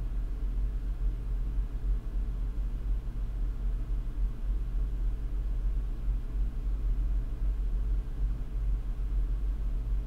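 Steady low-pitched hum and rumble, unchanging throughout, with no distinct clicks or knocks.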